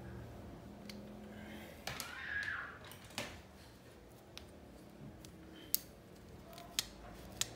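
Hand assembly of a bicycle rear derailleur: a short scrape with a metallic ring about two seconds in, then a few sharp, separate clicks of small metal parts and tools.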